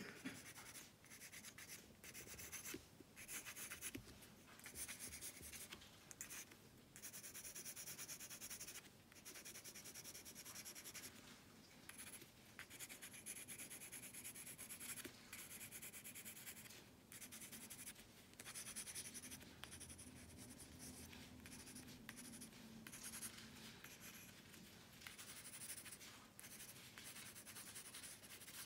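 Faint pencil scratching on paper in quick sketching and shading strokes, broken by short pauses as the pencil lifts.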